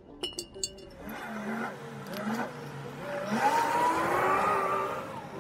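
A few light clicks, then a vehicle engine accelerating nearby, its pitch rising and growing louder before it eases off near the end.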